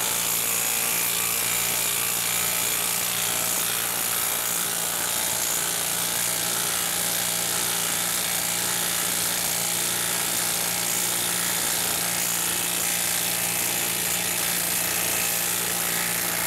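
Makita cordless half-inch impact wrench hammering steadily on high speed without a pause, driving a 5/8-inch galvanized lag screw deep into end-grain wood under heavy load.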